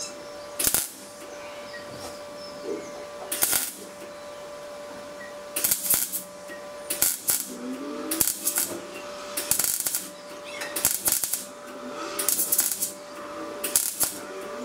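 MIG welder laying short stitch welds on a steel engine-mount bracket on the car's chassis: about ten bursts of crackling arc, each under a second, with short pauses between.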